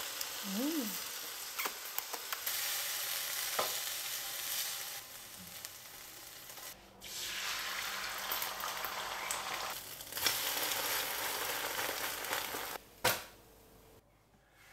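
Food sizzling in a hot frying pan; about seven seconds in, beaten egg poured into the nonstick pan sizzles as it spreads into a thin omelette. Near the end comes a single sharp knock, after which it goes quiet.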